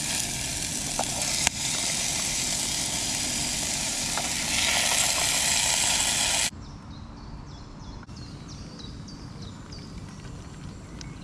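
Portable camping gas stove hissing steadily under a pan of frying onions and peppers, sizzling as canned mackerel in tomato sauce is spooned in, louder for the last couple of seconds before it cuts off suddenly. After the cut comes quieter outdoor background with a bird giving short, high, repeated chirps.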